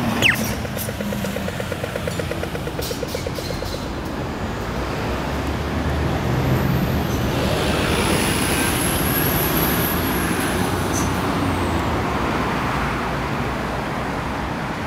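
Australian audio-tactile pedestrian crossing signal giving its walk cue: a quick falling laser-like sweep, then rapid even ticking, about eight a second, for some three seconds. Road traffic follows, swelling in the middle as a bus passes with a high whine.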